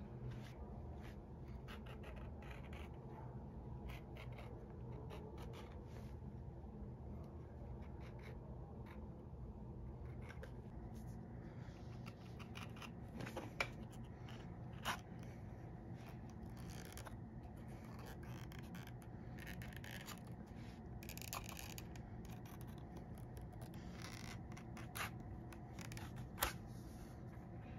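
Shoemaker's knife trimming the edge of a leather insole flush to a plastic shoe last: repeated short slicing and scraping strokes, with a few sharper clicks.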